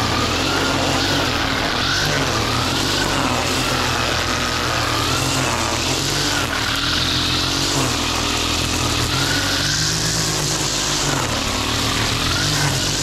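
String trimmer engine running at working speed, its pitch wavering up and down every second or two as the line cuts through long wet grass.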